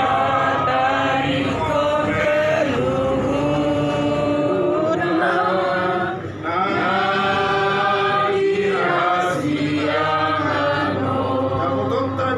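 A group of voices singing a slow hymn together in long held notes, with a short break between lines about six seconds in.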